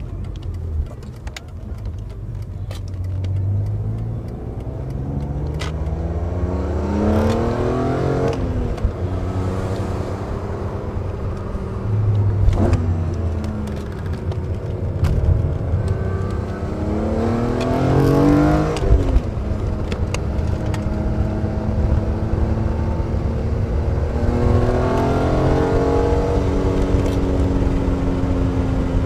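BMW E46 M3's 3.2-litre straight-six with a carbon-fibre intake airbox, heard from inside the cabin, accelerating through the gears. The revs climb three times with a strong intake sound, falling away after the first two climbs.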